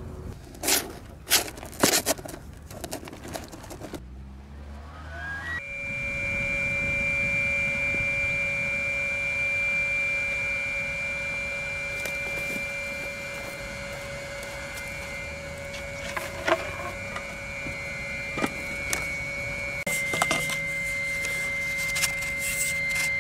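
Several knocks and a clatter, then a motor spins up with a rising whine about four seconds in and runs on with a steady whine. Its higher tone drops slightly near the end.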